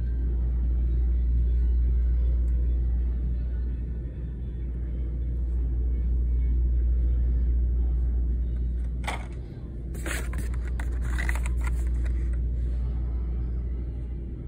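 A steady low rumble, swelling and easing slowly. Brief crinkles come about two-thirds of the way in as the cardboard-and-plastic blister cards are handled.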